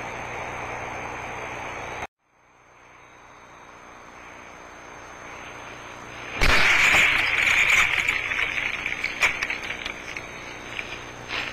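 Hissy, noisy field recordings presented as a sasquatch vocalization. The first cuts off abruptly about two seconds in. A second fades up, and a loud, harsh, crackling noise breaks in suddenly about six seconds in.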